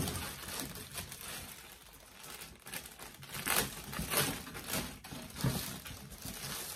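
Clear plastic packaging crinkling off and on as it is pulled off a metal tray.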